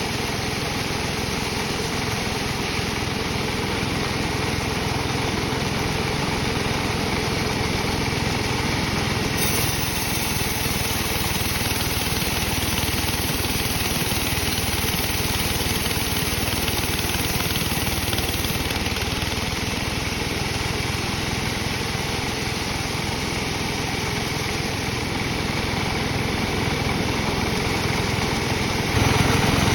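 Engine-driven sawmill running steadily. The upper hiss brightens for a stretch from about a third of the way in, and there is a brief louder patch near the end.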